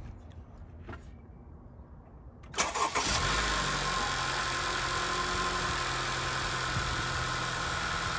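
Acura TLX engine with a freshly fitted aFe Takeda open-filter intake, starting suddenly about two and a half seconds in with a short burst and then settling into a steady idle.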